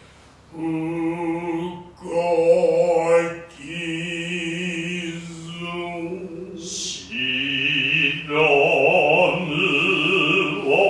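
Hosho-school Noh chanting (utai), voices holding long, wavering notes with short breaks between phrases. From about seven seconds in a steady high tone is held over the chant.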